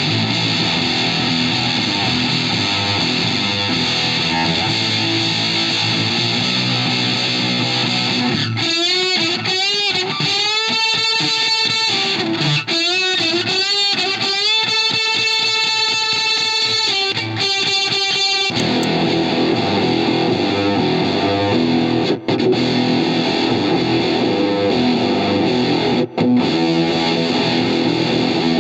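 Electric guitar played through a Fender Blender fuzz pedal reproduction, with a thick, distorted tone. Dense chords and riffs give way in the middle to single sustained lead notes bent up and down, then the chordal playing returns with two short breaks.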